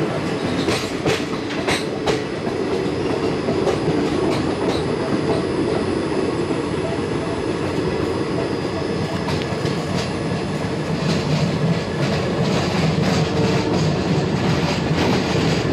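Passenger train running on the track: a steady rumble of wheels on the rails, with scattered clicks from the wheels over the rail joints.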